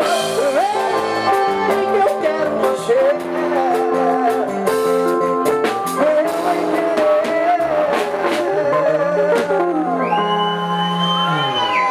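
Live sertanejo band playing: drum kit, bass, guitars and keyboard under a wavering lead melody. Near the end a long high note is held while the lower notes slide down.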